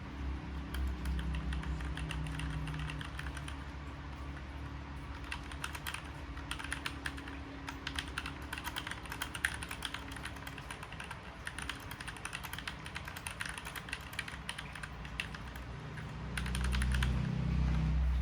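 Typing on a Keychron K2 V2 hot-swappable mechanical keyboard: a fast, uneven run of key clicks, thickest in the middle. A low steady hum sits underneath and swells near the end as the typing stops.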